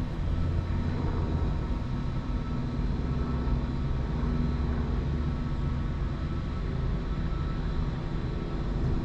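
Steady low engine drone, a deep rumble with a hum of harmonics that holds level throughout.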